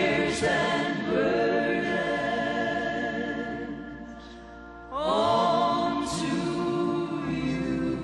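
Slow gospel song: a man's voice singing long held notes with choir backing. The music fades around four seconds in, and a new phrase swells up about a second later.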